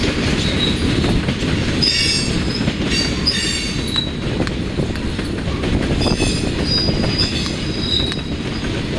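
Loaded freight train of tank cars rolling past close by: a steady, loud rumble of wheels on rail, with high-pitched wheel squeals about two seconds in and again near the end.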